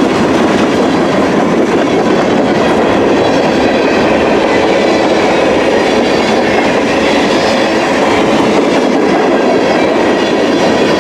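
CN freight train's cars rolling past on the rails: a steady, loud rumble and rattle of steel wheels on track.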